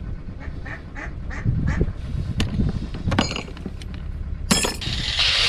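A run of short bird calls, about three a second, followed by a few sharp clicks and knocks; a power tool starts up right at the end.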